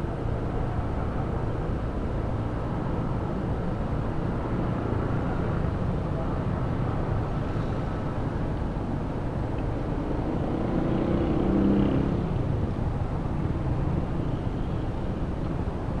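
Honda ADV 160 scooter's single-cylinder engine running under way, with steady wind and road noise on the microphone. The engine climbs in pitch around ten to twelve seconds in as it accelerates.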